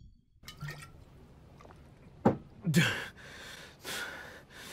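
A man grunting in pain twice, each grunt falling in pitch, then breathing hard in short, rapid breaths.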